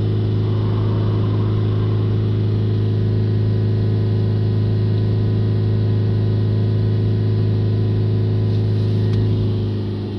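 Ford Ranger diesel engine held steady at about 3000 rpm with the truck standing still, heard from inside the cab, easing off slightly near the end. The high revs are held for a DPF back-pressure check after the filter has been cleaned.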